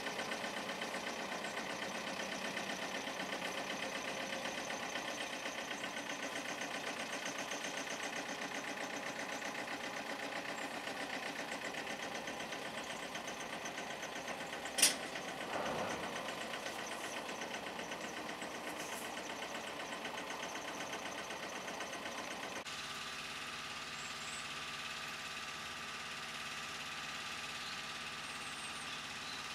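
DAF heavy-haulage tractor unit's diesel engine running steadily as it pulls a laden lowloader slowly across gravel, with one sharp click about halfway through. Near the end the engine is a little quieter and more distant.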